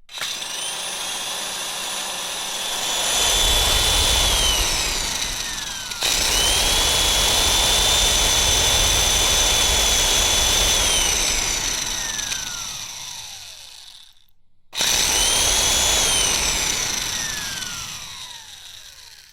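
Handheld electric mud mixer (paddle mixer) motor running in three separate runs. Each run has a high motor whine that falls away as the motor winds down to a stop, and there is a brief silence before the last run.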